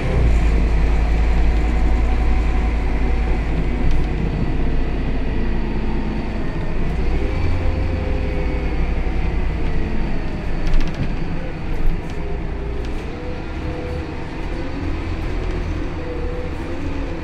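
Scania K280 city bus heard from inside the passenger saloon while under way: a steady low diesel engine and driveline drone with a whine that rises and falls in pitch as the bus speeds up and slows. A couple of sharp rattles or clicks come about two-thirds of the way in.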